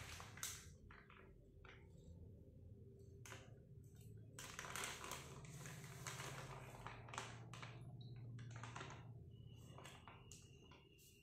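Faint, irregular crinkling and rustling of a thin plastic bag of water being handled, with scattered clicks, over a low steady hum.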